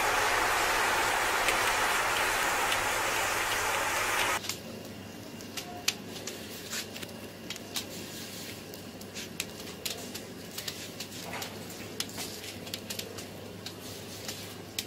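A large heap of burning matchsticks: a loud, steady rush of flames that drops suddenly about four seconds in to a quieter fire with scattered crackles and pops.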